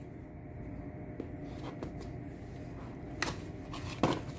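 Handling of a boxed earbuds package being opened: faint scuffing and light taps on the box, with two sharper clicks near the end.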